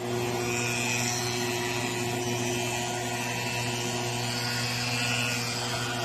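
Small multirotor drone hovering, its propellers giving a steady, unchanging hum with a faint whine on top.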